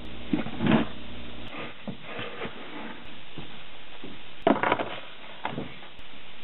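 Plastic tubs and lids being handled on a workbench, knocking and rustling in short bursts, the loudest about four and a half seconds in and a smaller one a second later. Before that, a low hum runs under a brief rubbing of gloved hands on a wooden pattern, then stops at about a second and a half.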